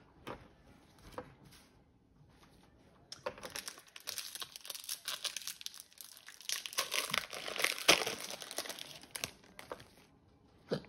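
Foil Pokémon booster pack wrapper crinkling and tearing as it is opened by hand, a dense run of crackles lasting about six seconds, starting about three seconds in.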